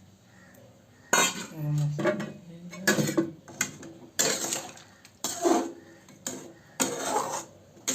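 Metal spoon stirring the chicken curry in a cooking pot, clattering and scraping against the pot in a run of sharp strokes that begin about a second in.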